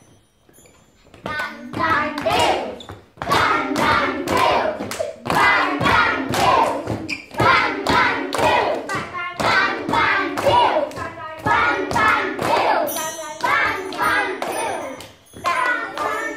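A group of young children clapping their hands in rhythm while their voices go together in unison, starting about a second in.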